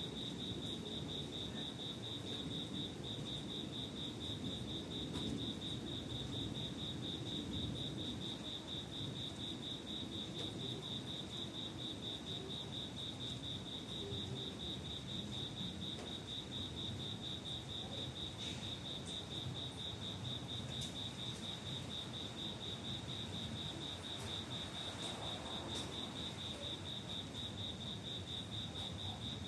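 An insect's steady, evenly pulsed high trill, with a low, even background noise beneath it.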